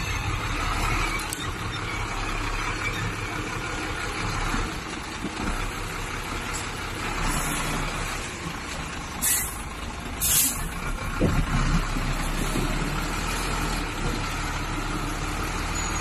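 Heavy dump truck's diesel engine running steadily as the truck creeps over gravel, with two short sharp air-brake hisses about nine and ten seconds in.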